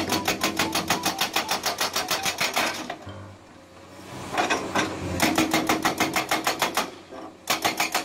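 Hydraulic breaker on a Komatsu PC200 excavator hammering rock: rapid, even blows about ten a second, in three runs, with a pause of about a second after the first run and a short break near the end.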